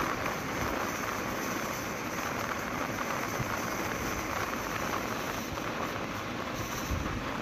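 Steady wind rush over the microphone and road noise from a motorcycle riding at speed.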